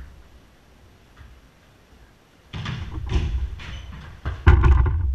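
Jorkyball being played in its enclosed cage: a few knocks of the ball and feet from about two and a half seconds in, then a loud thud with a low rumble about four and a half seconds in as a hard-kicked ball strikes the cage wall.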